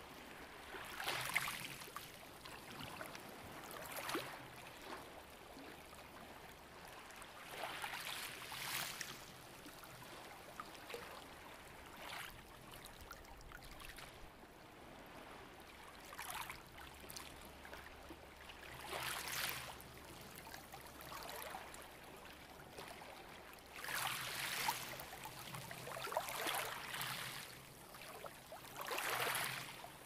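Ocean waves washing in and drawing back, a soft rush that swells and fades about every three to four seconds.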